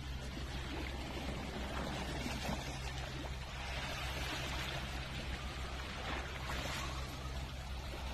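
Sea water washing and trickling over rocks, an even rushing noise, with a steady low hum underneath.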